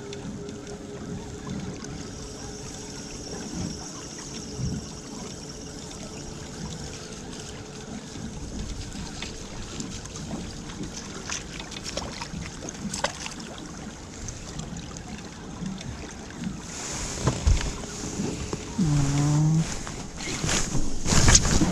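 Water and wind noise aboard a small fishing boat, with scattered light knocks. It gets louder, with rushing and clatter, over the last few seconds.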